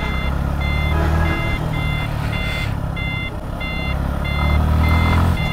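A vehicle's electronic beeper sounding a steady series of short high beeps, a bit under two a second, over the low steady rumble of vehicle engines held up in traffic.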